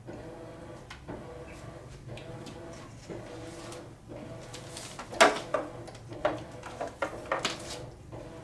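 Handling noises from airplane parts and packaging: scattered clicks, light knocks and rustling, with a sharper knock about five seconds in and a run of quick clicks after it, over a faint steady hum.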